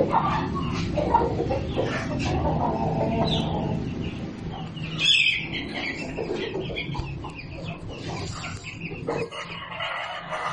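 Chickens clucking, with one louder, higher squawk about five seconds in, over a steady low hum during the first half.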